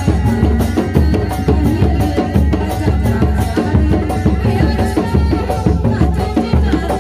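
Live Sundanese reak music: big dogdog drums beaten in a fast steady rhythm, about four strokes a second, with a sustained pitched melody above the drums.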